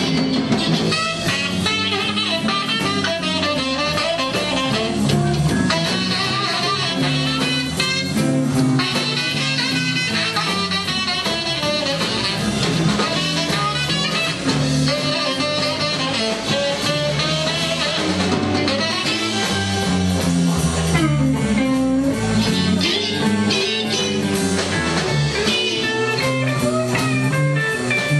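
Live blues band playing an instrumental break: electric guitar lead over bass and drum kit, with a saxophone in the band.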